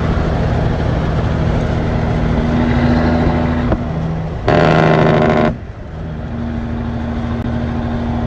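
Cummins 855 Big Cam diesel in a Kenworth W900A semi running steadily at highway speed. About four and a half seconds in, a loud, pitched blast lasts about a second over the engine.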